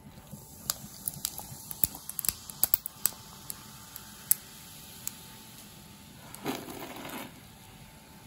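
Fizzy pineapple soda crackling over ice in a glass, with many sharp clicks and cracks from the ice just after the pour. A short rushing noise follows near the end.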